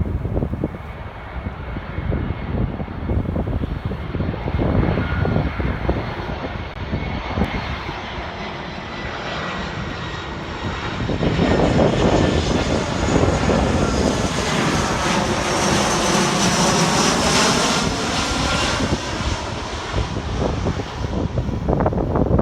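Arriving airliner passing close on its landing approach. Its engine noise builds from about halfway through and peaks with a high whine, then eases slightly near the end, while wind buffets the microphone throughout.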